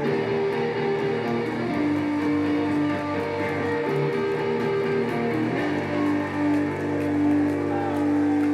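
Live rock band playing an instrumental passage led by strummed electric guitars with bass; about six seconds in, the band settles into a steady held chord.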